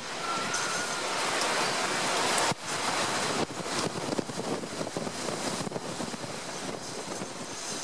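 Heavy wind-driven rain of a storm's cold front, a dense rushing hiss with rain spattering on the street. The rush dips sharply about two and a half seconds in, then carries on more unevenly with many sharp patters.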